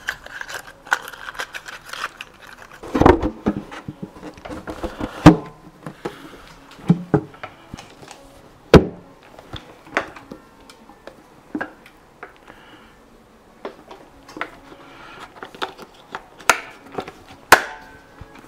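Scattered clicks and knocks of hand work on a Suzuki DT9.9 two-stroke outboard: spark plug caps being pushed onto the new plugs and the plastic engine cowling being set in place and latched. The sharpest knocks come about three, five and nine seconds in.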